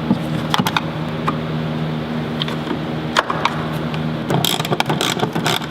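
Sharp plastic clicks and snaps as the taillight's bolt covers are pried off with a flathead screwdriver, then a quick run of clicking about four and a half seconds in, over a steady low hum.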